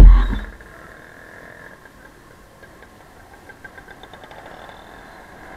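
A sudden loud knock and thump right at the start, then a motorcycle engine running at low speed under a steady low rumble, with faint regular ticks.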